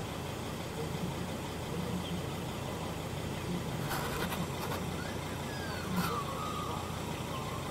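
A vehicle engine idling: a steady low rumble, with a few faint clicks and short high chirps in the second half.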